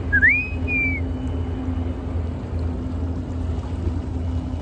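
Small boat motor running steadily: a low hum with one steady tone above it. In the first second a short whistle-like call rises and then falls.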